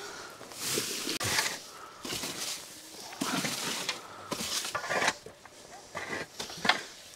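Shovels scraping across a dirt floor and tossing loose straw into a wheelbarrow, in about five strokes a second or so apart, with footsteps at first.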